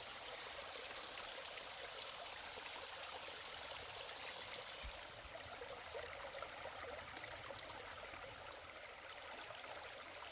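Water running steadily in a small stream, a soft continuous rush.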